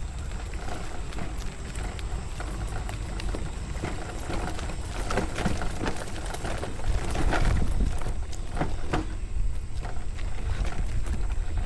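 Wheelchair rolling over rough, bumpy ground, with a steady low rumble and frequent rattling knocks.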